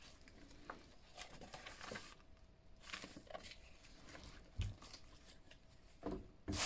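Faint rustling and light clicks of a Lite-Brite refill package being handled and turned over, with a soft thump about four and a half seconds in and a knock near the end as it is set down on the tabletop.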